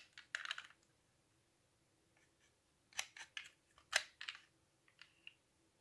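Faint clicks from the sliding door of a Siku 1:50 die-cast Sprinter model van being slid and snapped shut by hand: a few light clicks just after the start, then small clusters of clicks about three and four seconds in.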